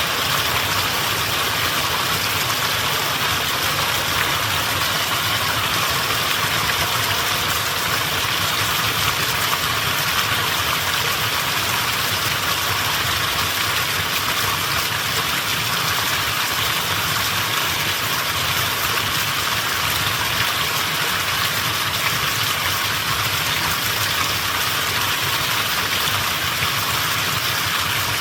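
Mountain stream water rushing and gurgling over rocks in a steady, unbroken flow.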